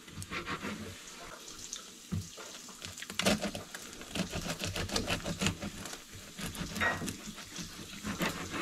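Serrated knife sawing back and forth through a crusty loaf of bread, the hard crust crackling and rasping with each stroke against the plastic cutting board.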